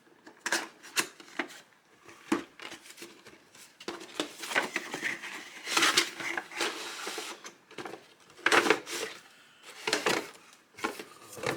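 Cardboard figure box being opened by hand and its plastic inner tray handled: an irregular run of clicks, taps, scrapes and rustles.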